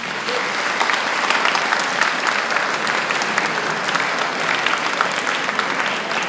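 Audience applause: many hands clapping at once, dense and steady.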